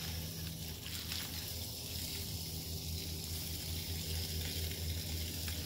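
Water running steadily into a bucket of fermenting corn bait to cover the corn, with a steady low hum underneath.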